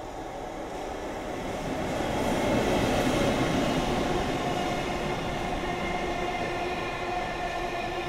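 JR Freight EF65 electric locomotive passes close, loudest about two to three seconds in, followed by mostly empty container flatcars rolling steadily past. A steady ringing tone sits over the wheel noise.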